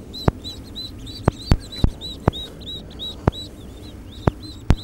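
Ducklings peeping, a steady run of short high calls about three a second. Sharp clicks or knocks come irregularly throughout, louder than the peeps.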